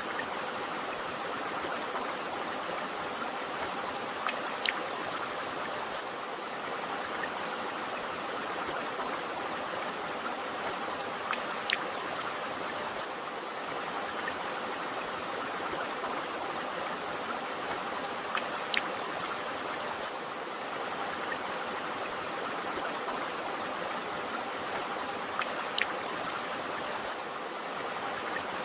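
Stream water flowing steadily with an even rushing sound, broken by short sharp drip-like ticks, often in pairs, about every seven seconds.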